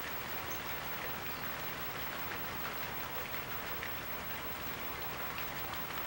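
Dense, steady pattering of a large mixed flock of waterbirds flapping low over the water, taking off and landing.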